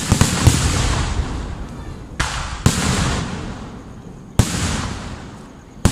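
Aerial firework shells bursting with sharp bangs. A quick cluster of three comes first, then single bangs every one and a half to two seconds, each one fading out slowly.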